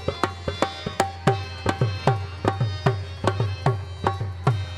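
Instrumental break in a Sindhi folk song: a tabla-style hand drum plays a steady, quick beat, its deep bass strokes sliding down in pitch, over a faint held melody note.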